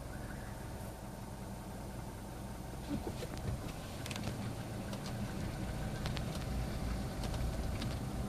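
Nissan March's CR14DE 1.4-litre four-cylinder engine running with a constant knock from the engine. The owner suspects a stretched timing chain at close to 200,000 km, or a connecting rod.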